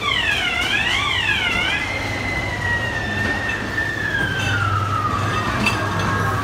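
Ghost-train ride sound effect: an electronic, siren-like wail that swoops up and down twice, then one long tone gliding slowly down in pitch, over a steady low hum.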